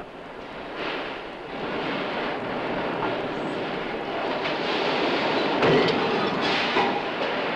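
Press-shop machinery noise: a large stamping press line and sheet-metal panels on roller conveyors, a steady clattering din with several metallic clanks, the loudest a little before six seconds in.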